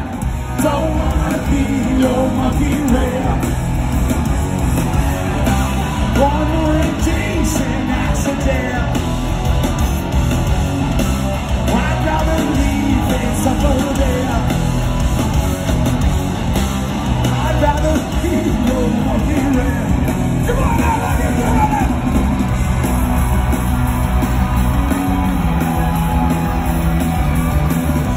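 A live rock band playing loud through a concert PA: electric guitars, bass and drums, with a singer singing and yelling into the microphone.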